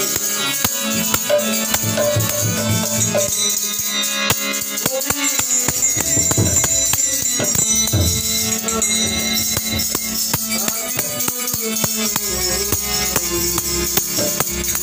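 Harmonium playing steady held chords while a metal-jingle rattle is shaken in a quick, even rhythm, with dense jangling on top.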